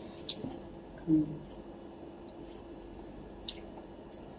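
Quiet room tone with a steady faint hum, a few soft scattered clicks, and a brief murmur from a voice about a second in.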